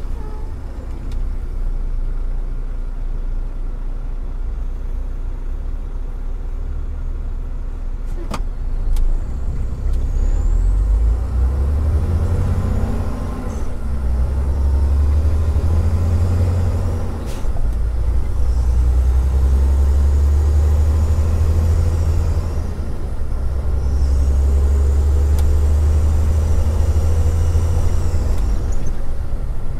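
Semi-truck's diesel engine heard from inside the cab: a quieter low rumble at first, then working hard as the truck pulls away and gathers speed, the drone easing briefly twice as it shifts gears.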